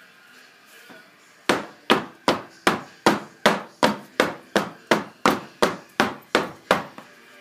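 Wooden loaf soap mold, filled with freshly poured cold process soap, rapped down on a stone countertop about fifteen times at roughly three knocks a second, starting about a second and a half in. This is the usual way to settle the batter and knock out air bubbles.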